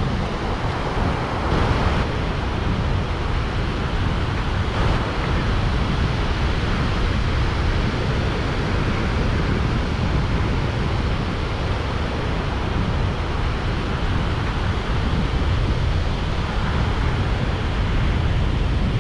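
Steady rush of ocean surf breaking along a sandy beach, with wind buffeting the microphone in a low rumble.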